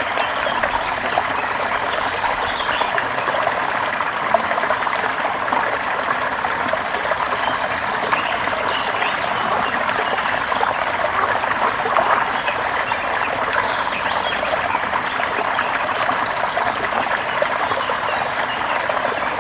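Water flowing in a forest stream: a steady, continuous trickling and babbling that keeps an even level throughout.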